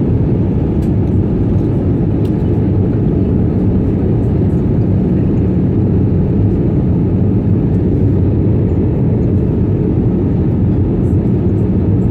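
Steady, low-pitched cabin noise of an Airbus A320 on approach, engines and airflow heard from inside the passenger cabin, with a faint hum under it.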